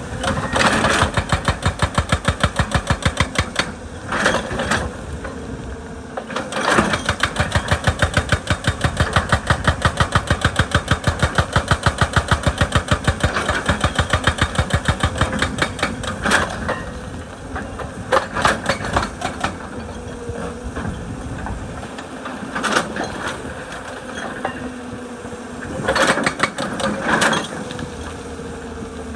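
Excavator-mounted hydraulic breaker hammering rock in runs of rapid, evenly spaced blows, with the excavator's diesel engine running in the pauses between runs.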